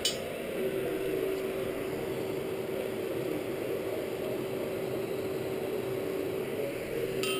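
Electric forge blower running steadily, a constant hum over a rushing of air, with a short metallic clink of steel bar stock at the very start.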